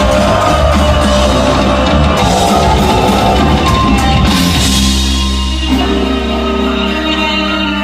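A live heavy metal band playing loudly, with drum kit and guitars. About three-quarters of the way through, the drums fall away and held, sustained notes ring on.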